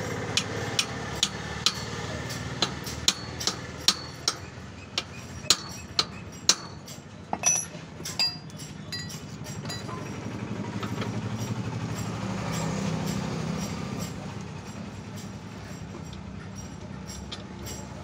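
Hammer tapping on a bicycle's steel bottom bracket, sharp ringing metal strikes about two a second, stopping about eight seconds in. A low drone then rises and fades.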